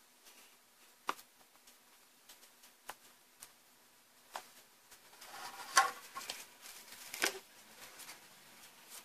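Handling noise from lifting an LCD monitor's glass panel off its backlight frame with a suction cup: scattered light clicks, then a spell of plastic crackling and rustling, loudest a little before six seconds, and a sharp click about a second later.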